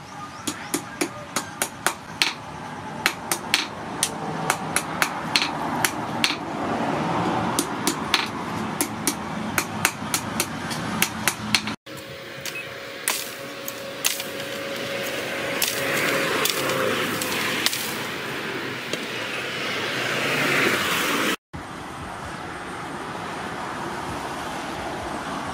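Hand hammer striking red-hot rebar on an anvil while forging the three prongs of a fishing spear: a steady run of sharp metal blows, about two a second, for roughly the first half. It then gives way to a steady noisy rustle with a few faint clicks.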